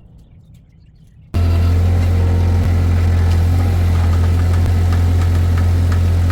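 Quiet outdoor background with faint clicks, then, a little over a second in, a sudden cut to a loud, steady engine idle with a deep hum and light ticking.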